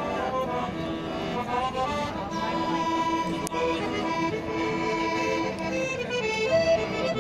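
Piano accordion played by a street busker: a tune of held notes, one after another, with no break.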